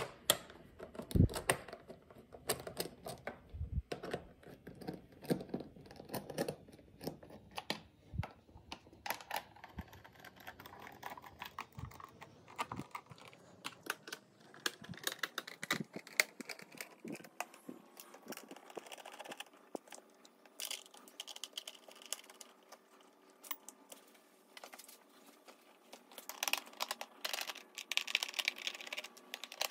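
Irregular light clicks, taps and knocks of a hand screwdriver and fingers working the fasteners and plastic cover of a Triumph Daytona 675's airbox, growing busier near the end.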